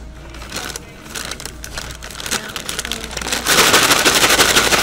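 Paper fry bag crinkling as it is handled and folded. About three and a half seconds in, the bag is shaken hard and fast, and the fries and seasoning inside rattle against the paper in a dense rustle.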